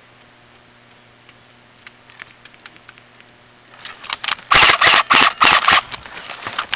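A few faint scattered airsoft shots, then about four seconds in a loud run of rapid bursts from an airsoft gun firing close to the microphone.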